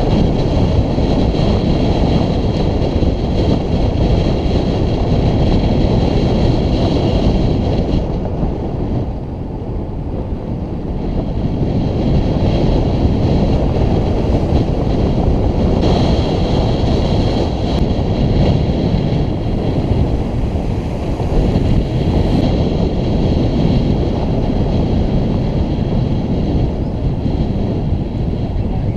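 Wind rushing over the camera microphone while riding a road bike fast downhill: a loud, steady rush, with a thin high whine that comes and goes twice.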